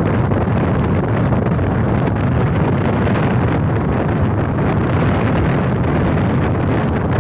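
Wind buffeting the microphone: a steady, loud rumbling noise with no break.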